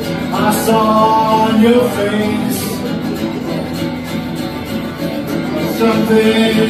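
Acoustic guitar strummed live, with a man singing long held notes about half a second in and again near the end.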